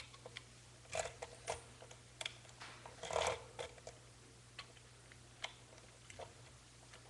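Light, irregular plastic clicks and taps of LEGO pieces being handled, with a small cluster about three seconds in, over a faint steady low hum.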